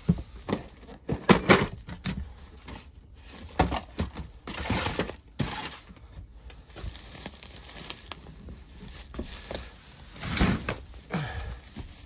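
Irregular knocks, bumps and rustling of stored boxes and plastic-wrapped items being handled and shifted. There are louder clattering bursts about a second and a half in, again around four to five seconds in, and near the end.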